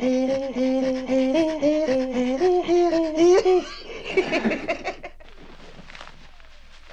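Two Inuit women throat singing (katajjaq) face to face in a fast rhythmic pulsing of voiced and breathy sounds, about five a second, stepping up in pitch. About three and a half seconds in, the duet breaks off into laughter, the way a round of the game ends when one singer falters.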